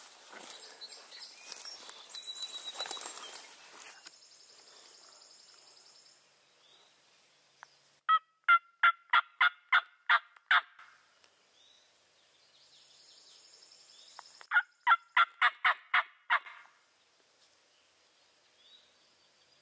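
Two loud series of turkey yelps, each about eight short, evenly spaced notes, from a hunter's turkey call used to get gobblers to answer. Rustling footsteps in leaves come before the calling.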